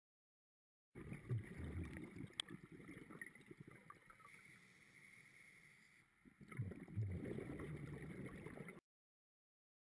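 Underwater sound of scuba breathing through a regulator. Two bubbling bursts of exhaled air come about a second in and again after six seconds, with a quieter stretch between. The sound cuts off suddenly near the end.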